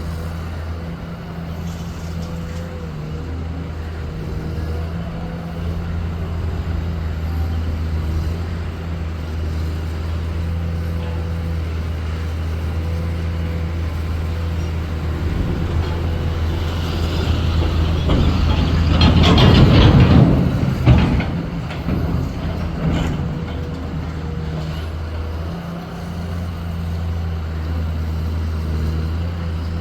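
Excavator's heavy diesel engine running steadily at a low hum, with a loud burst of noise lasting about three seconds about two-thirds of the way through, ending in a sharp knock.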